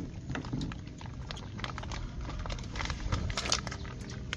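Chopsticks clicking and tapping against ceramic rice bowls as people eat, a scatter of light, irregular clicks.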